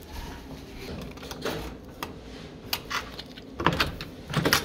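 Hotel room door being unlocked with a key card and opened: a cluster of sharp clicks and knocks near the end as the lock releases and the lever handle turns. A few fainter knocks come before it.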